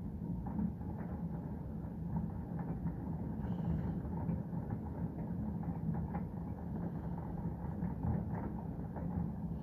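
Distant fireworks going off in quick succession: a dense stream of small pops and crackles over a steady low rumble.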